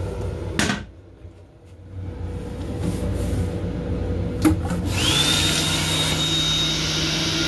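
A knock under a second in, then train rumble. About five seconds in, the restroom sink faucet comes on: water runs into the basin with a steady high motor whine that rises in pitch as it starts, over a low hum.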